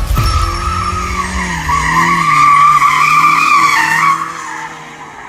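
Car tyres squealing with an engine running beneath, a sound effect under an animated logo. The squeal wavers, stops about four seconds in, and leaves a quieter tail.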